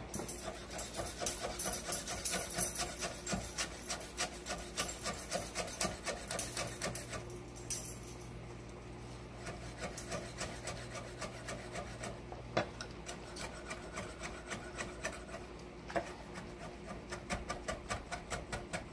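Chef's knife chopping fresh parsley on a wooden cutting board: quick, rhythmic knocks of the blade against the wood, several a second, thinning out and softer through the middle before picking up again near the end.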